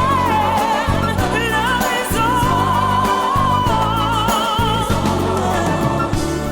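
Background music: a solo voice singing a slow melody with vibrato over sustained bass chords.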